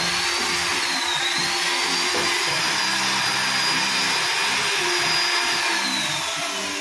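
An electric power tool's motor running with a steady high whine and hiss, winding down over the last second or so.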